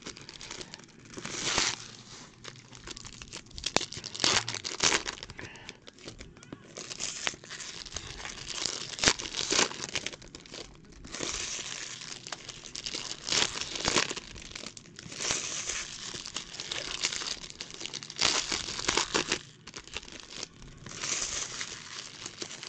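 Foil trading card pack wrappers being torn open and crumpled by hand, in irregular crinkling bursts that stop and start, with the cards inside being handled.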